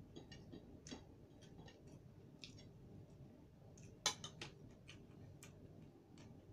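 Spoon clicking and scraping on a ceramic plate as food is scooped up: scattered faint clinks, with one sharper clink about four seconds in.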